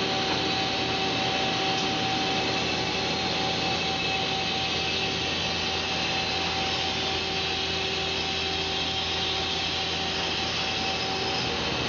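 2008 Mazak QTN-250MSY II CNC lathe running: a steady mechanical whir with a steady whine, as the spindle turns a brass part with coolant spraying.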